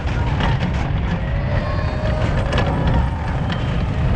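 Mine-train roller coaster running along its steel track, heard from a car on the ride: a dense, steady rumble with scattered sharp clacks.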